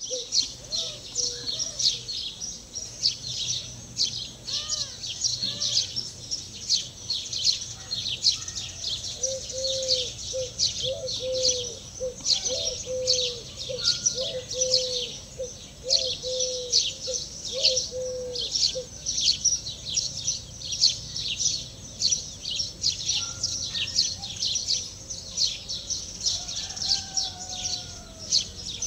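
Small birds chirping densely and continuously, with a lower call repeated about twice a second for around ten seconds in the middle.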